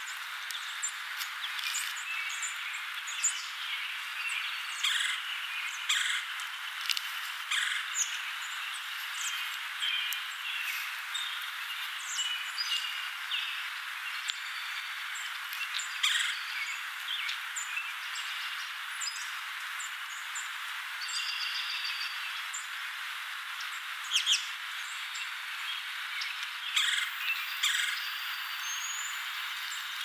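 Red-bellied woodpecker giving short calls at irregular intervals a few seconds apart, over a steady outdoor hiss.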